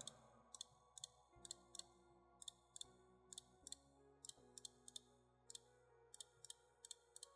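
Faint, irregular clicking of a computer mouse and keyboard, a few clicks a second, over faint background music with long held notes.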